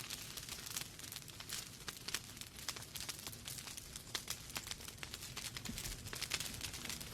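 Wood fire in a fireplace crackling steadily, with dense irregular pops and snaps over a soft low rumble.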